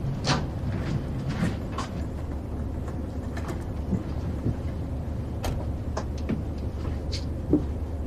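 Steady low drone of an airliner cabin in flight, with scattered small clicks and rustles over it and one sharper knock near the end.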